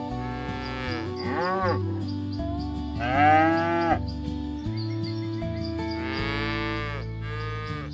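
Village cattle mooing several times, long pitched calls that rise and fall, the loudest about three seconds in, over steady background music.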